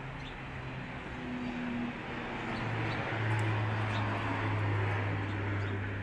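A motor vehicle driving past, its engine hum and rushing noise growing louder about halfway through and fading near the end.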